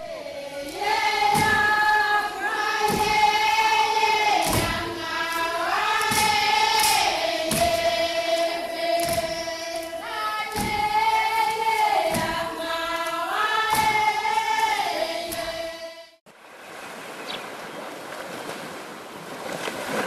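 A group of Vanuatu women singing a chant-like sacred dance song in unison, holding long notes that step between a few pitches, over a regular thump about every second and a half. The singing stops about three-quarters of the way through, and surf washing on a beach follows.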